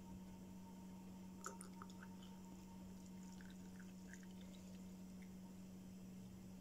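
Near silence: a steady low hum with a few faint small clicks and ticks.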